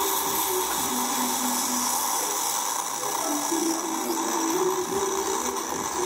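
Bosch Tassimo pod coffee machine running its pump near the end of a brew: a steady hum with a whine that shifts in pitch, under an even hiss.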